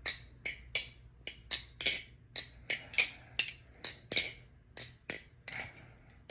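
Balisong (butterfly knife) being flipped: sharp metal clacks of the handles swinging and latching, about three a second. The pivots have just been oiled with thick oil that is still being worked in and still sound a little dry.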